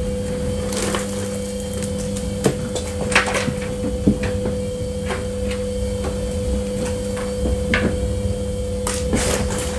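Steady electrical hum with a low rumble beneath it, broken by scattered knocks and clicks, loudest a few seconds in.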